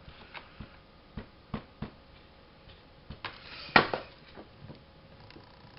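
Small clicks and taps of paper and fabric being handled on a craft table, with one louder crackling click about two-thirds of the way in.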